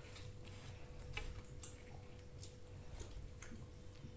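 Faint, irregular small clicks and taps of people eating a meal, with cutlery and food containers, over a low steady hum.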